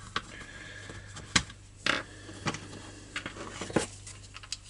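Scattered clicks and light knocks, about seven, of a chainsaw's plastic recoil-starter housing being lifted off and turned over by hand, with a steady low hum underneath.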